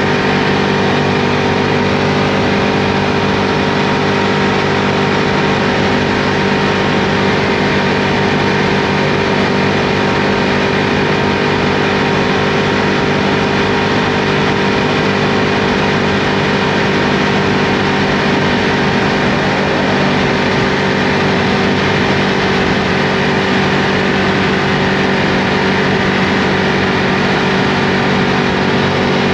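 Ducati Multistrada V2S's V-twin engine running steadily while under way, its pitch holding level, with a constant rush of wind noise.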